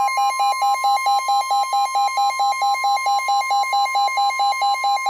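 Midland NOAA weather radio sounding a severe thunderstorm warning alert: a rapid pulsing beep, about five a second, over a steady high alarm tone.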